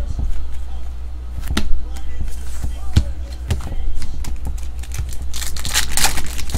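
A 2013 Panini Rookies & Stars foil hobby pack being torn open near the end, a dense crinkling rip. Before it come a few light clicks and taps as trading cards are handled.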